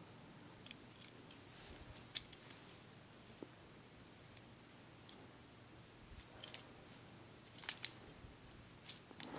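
Scattered faint clicks and taps as a plastic-and-metal Beyblade top is turned over and handled in the fingers.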